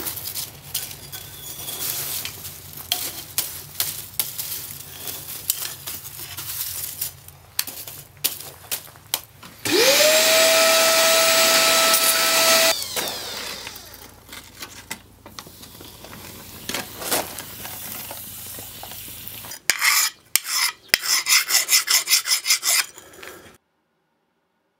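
Coal forge crackling with scrapes of steel in the coals, then a loud hiss about ten seconds in, with a tone that rises and then holds for about three seconds, as the hot steel cleaver blade is quenched. Near the end comes a quick run of clicks, then the sound cuts off.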